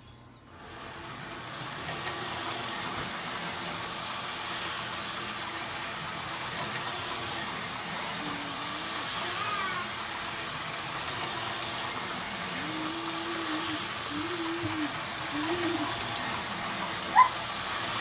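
Vintage Lionel O-27 U.S. Steel switcher train running laps of a small circle of three-rail tinplate track: a steady whirring of the locomotive's motor and the wheels on the rails. The sound swells up over the first second or two as power is applied. There is a sharp click near the end.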